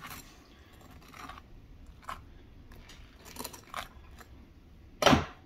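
Table knife scraping soft homemade butter across a slice of bread, in a few faint, short strokes. A louder, short knock comes near the end.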